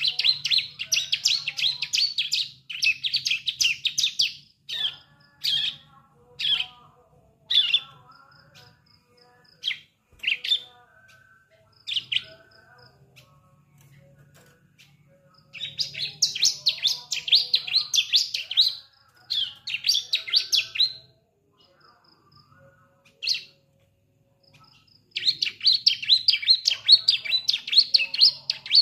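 Juvenile bar-winged prinia (ciblek) still learning to sing: runs of rapid, high chirping lasting a few seconds, three times, with single short calls between them.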